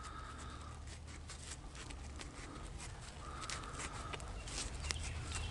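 Faint handling sounds of natural-fibre twine being wrapped tightly, turn by turn, around a rope end to whip it: light scattered clicks and rubbing. A few short, faint animal calls sound in the background.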